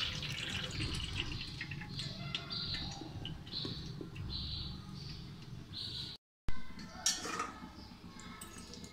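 Birds chirping in short repeated calls over a low hum, with faint dripping and light knocks as soaked soya chunks drain in a steel strainer. The sound drops out briefly about six seconds in, then a few light clicks follow.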